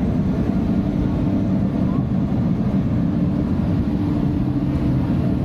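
Royal Caribbean Navigator of the Seas' machinery and ventilation heard on the open top deck: a steady low rumble with a constant hum.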